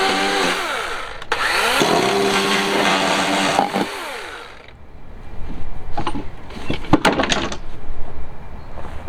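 Battery-powered electric chainsaw cutting wood in two short bursts. Its motor whine winds down just under a second in, starts up again, runs for about two seconds and winds down to a stop about four seconds in. A few knocks follow.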